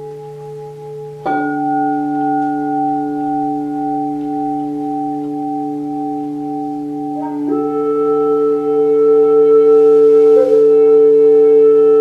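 A metal singing bowl struck about a second in and left ringing in several long, steady overlapping tones, over a low steady drone. From about seven seconds in, a wooden flute joins with long held notes, stepping up in pitch a couple of times.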